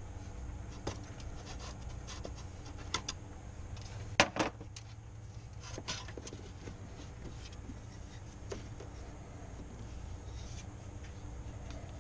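Scattered clicks and knocks of hand work on a Honda power steering reservoir: pliers on the hose clamp and the plastic reservoir being worked loose from its mount. The loudest is a quick double knock about four seconds in, over a steady low hum.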